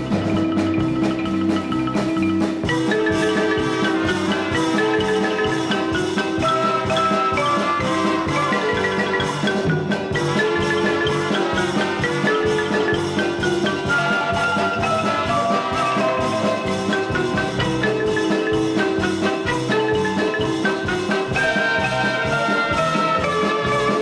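Background music led by marimba or xylophone-like mallet percussion, with a steady run of bright pitched notes.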